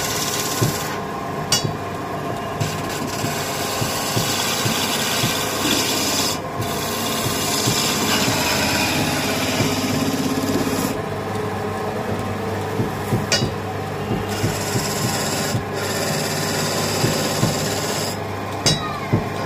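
Hand chisel shaving a spinning wooden blank on a wood lathe: a continuous rasping hiss of wood being cut. The high hiss breaks off briefly several times, and there are a few sharp clicks.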